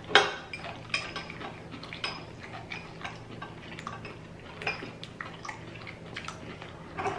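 Eating sounds at close range: crunching and chewing of deep-fried seafood, with scattered sharp clicks throughout and the loudest one just after the start.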